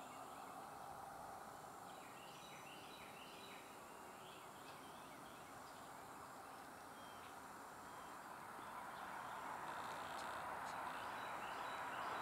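Faint outdoor ambience: a steady hiss that grows louder in the last few seconds, with scattered short bird chirps about two seconds in and again near the end.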